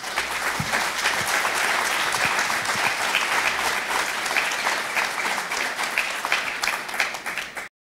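Audience applauding: many hands clapping together in a steady, dense patter that stops abruptly near the end.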